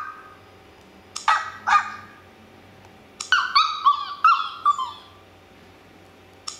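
Recorded puppy yips and yelps played from a dog-sounds soundboard app through a tablet's speaker. There are two short yips about a second in, then a quick run of about six high yelps between three and five seconds in, and another bark starts right at the end.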